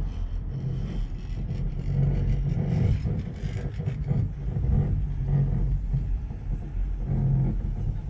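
Wind rumbling on a smartphone microphone riding in an open cable-car cabin: a steady low rumble with uneven swells every second or so.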